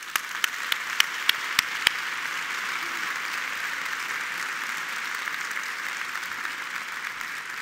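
Large audience applauding: a few sharp, close claps stand out at the start, then dense, steady applause that eases slightly near the end.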